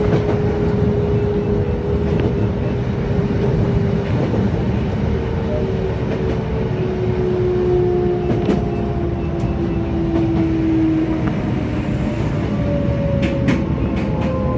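Kobe Electric Railway (Shintetsu) electric train running, heard from the cab: a steady rumble of wheels on rail with whines that slowly fall in pitch as the train slows, and a few sharp clicks of wheels over rail joints near the end.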